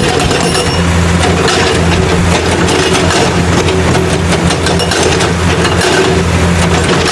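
Heavy engine idling steadily, loud, with a deep low rumble throughout.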